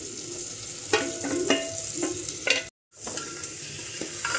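Fried paneer cubes pushed off a steel plate into a pressure cooker of sizzling peas and onions, with a wooden spatula scraping and several sharp clinks against the metal; the sound cuts out for an instant about three seconds in, then a steel ladle stirs and scrapes in the cooker.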